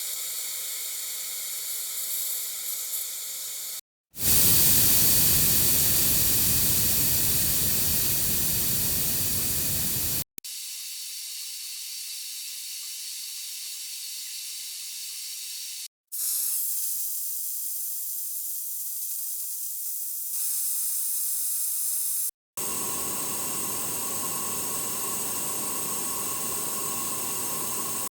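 A run of five separate steady hiss recordings, like gas or air escaping, each a few seconds long and cut apart by brief silences. The loudest, about four seconds in, is a full-range hiss lasting about six seconds; the others are thinner and higher.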